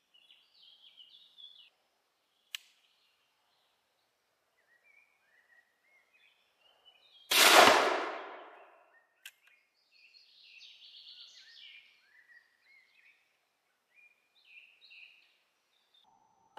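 A single shot from a Karl Pirko black-powder percussion over-under double rifle firing a buckshot load: one sudden bang about seven seconds in that dies away over about a second. Faint birdsong around it, with a sharp click a few seconds before the shot and another just after.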